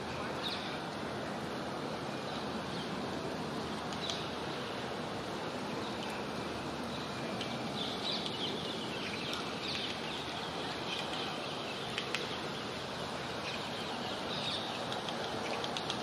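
Steady background noise of a city park with scattered high chirps of small birds. A couple of sharp taps come about twelve seconds in.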